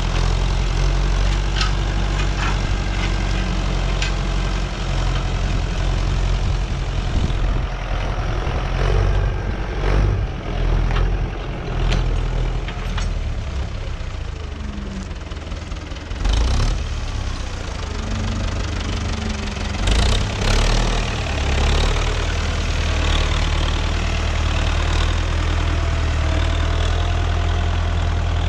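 Farm tractor engine running steadily with a deep rumble, with scattered sharp knocks and clanks as boulders are picked up and moved.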